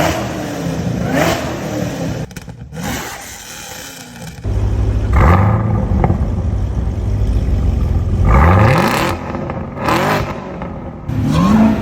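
Supercharged 6.2-litre V8 of a Camaro ZL1 revved through its exhaust in several sharp blips from a steady idle, the pitch sweeping up with each rev and falling back, with abrupt cuts between takes.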